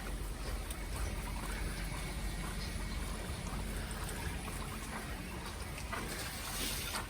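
Steady hiss of a wet outdoor street during snowfall, with faint scattered ticks and a brief louder hiss near the end.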